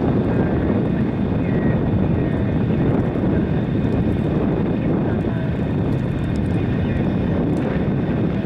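GE diesel-electric road locomotive running with a steady, heavy engine rumble.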